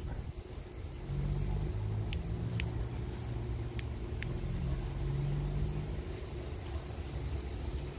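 Car engine idling, a low steady hum, with four short sharp clicks in the middle seconds.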